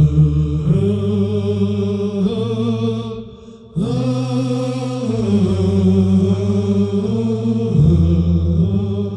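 Layered, multi-tracked male voices chanting long, low held notes in several parts at once, stepping to new pitches every second or so. The chant fades out about three seconds in and comes back strongly a moment later.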